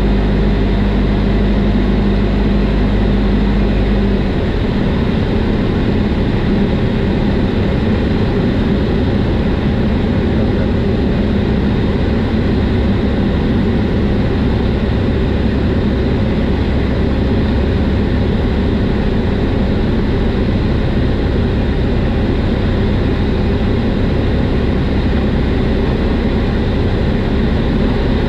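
Cessna 172 Skyhawk's piston engine and propeller droning steadily, heard from inside the cabin. About four seconds in, the engine note changes: its strongest low tones drop away and the sound gets slightly quieter.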